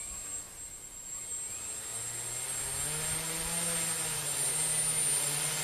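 3D-printed quadcopter's electric motors and propellers spinning up on the ground: a steady high whine with a low propeller hum that comes in about two seconds in, rising in pitch and getting louder.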